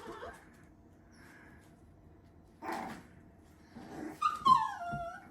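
Young puppies yipping and whimpering while they play: short yips at the start and about halfway, then a longer whine that falls in pitch near the end.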